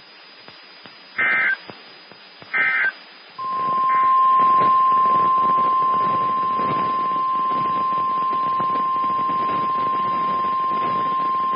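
NOAA Weather Radio broadcast: two short bursts of digital SAME data tones, then the steady 1050 Hz Warning Alarm Tone, one high pitch held for about nine seconds over radio static. The tone signals that a new warning is about to be read.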